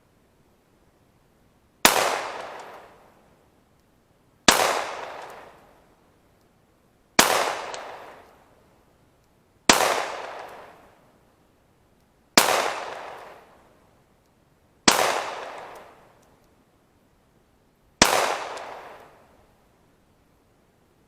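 Seven slow, evenly paced shots from a Glock 19 9mm pistol firing 115-grain full metal jacket rounds, about two and a half seconds apart. Each shot is followed by an echo that dies away over about a second and a half.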